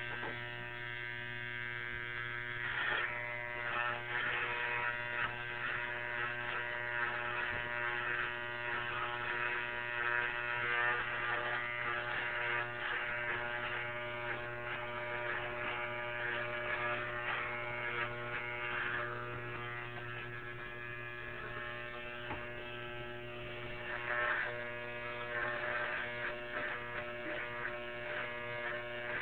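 Electric shaver buzzing steadily, its level rising and falling a little as it is worked through hair.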